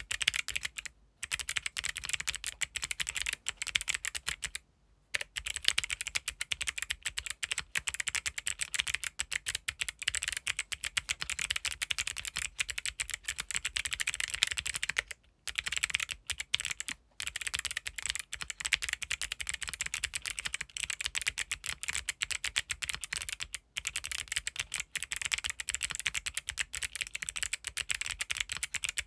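Continuous fast typing on a mechanical keyboard with Kailh Box White V2 clicky switches: sharp, crisp clicks from each keypress, with a few brief pauses. The keyboard is a gasket-mounted MonsGeek M1 with a polycarbonate plate and foam dampening.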